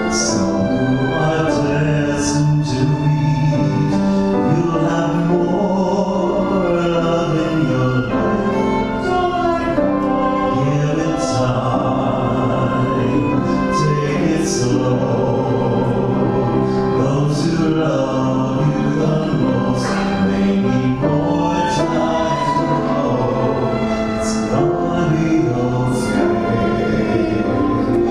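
Small vocal group singing in harmony, accompanied by violin, upright bass and grand piano.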